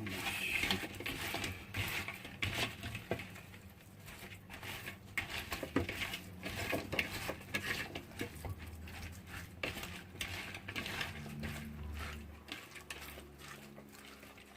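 Cut potatoes, carrots and meat being stirred with a utensil in seasoning liquid inside a heat-resistant container, with irregular clinks and scrapes against the container.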